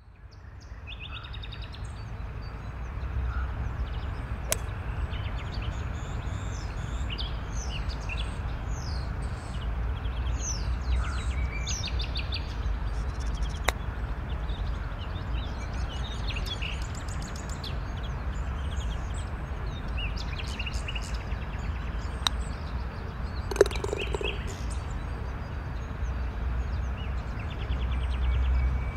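Nature ambience sound effect: many small birds chirping and trilling over a steady low rumble, fading in over the first few seconds. A few sharp clicks, the loudest late on.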